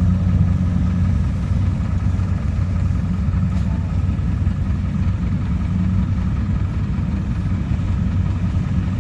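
Harvest machinery engine running steadily at a constant speed, a low, even hum.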